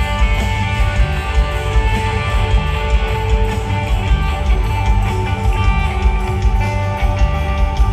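Rock band playing live in an arena: loud, distorted electric guitars strumming over bass and pounding drums.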